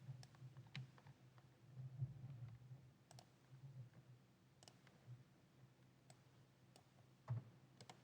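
Near silence with a faint low hum and a handful of soft, scattered clicks.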